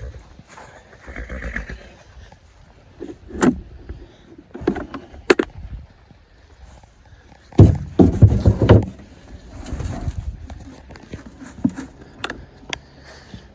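Clatter and knocks of a horse's feed being handled and set out in a barn, with a loud burst of clattering and thumping about eight seconds in.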